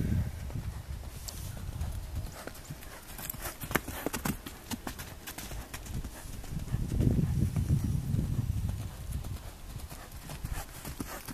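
Hoofbeats of a young Akhal-Teke filly cantering loose over dry dirt and grass: an uneven run of dull thuds that grows louder for a couple of seconds past the middle.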